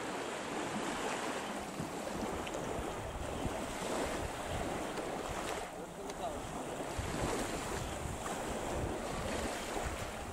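Steady wash of small Black Sea waves on a sandy beach, with wind buffeting the microphone.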